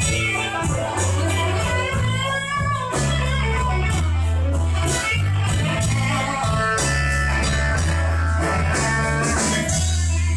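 Slow blues played by a band: a lead guitar plays notes that bend and waver in pitch over a sustained bass line and a steady beat.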